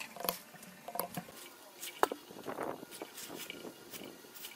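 Metal hand tools clicking and tapping on an aluminium engine crankcase and cylinder head, a handful of short, sharp clinks with soft handling rustle between them; the loudest clink comes about two seconds in.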